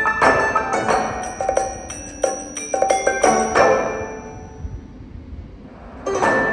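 Background music of plucked and chiming notes, which thins to a quiet lull about four seconds in and starts up again near the end.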